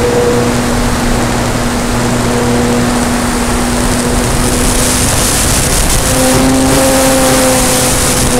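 Phoenix 2000 RC glider's electric motor and propeller running under power, a steady hum over the rush of wind past the fuselage-mounted camera. About six seconds in, the hum rises a little in pitch and the wind hiss grows.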